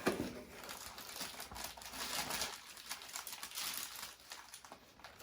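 Packaging crinkling and rustling in irregular handling noises, with a sharp knock right at the start.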